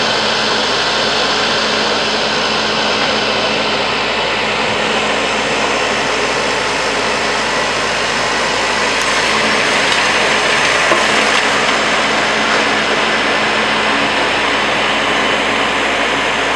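Diesel engine of a backhoe loader running steadily, a loud, even noise with no change in pace.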